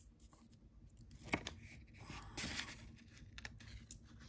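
Faint handling noise of a paper-sleeved bar of soap and its packaging: a light tap about a second in, then soft rustling and a few small clicks.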